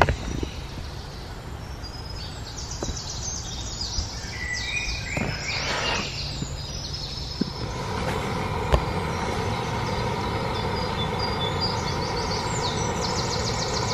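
Small songbirds chirping repeatedly. From about 8 seconds in, a steady hiss with a faint held tone joins them: a canister gas stove burning under a collapsible kettle as the water heats.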